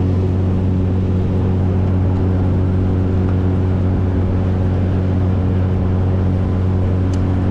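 Boat motor running at a steady cruising speed: a constant low drone with steady overtones.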